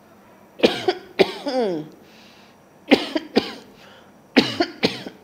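A person coughing hard in three short bouts of two or three coughs each.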